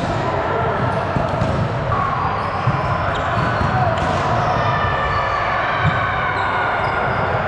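Indoor gym ambience during a volleyball match: a steady hubbub of many voices, with a few short sharp thumps of ball or feet on the court.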